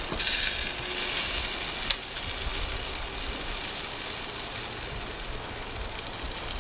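Chicken wings sizzling on a portable propane grill, a steady hiss that is briefly louder in the first second, with one sharp click of metal tongs about two seconds in.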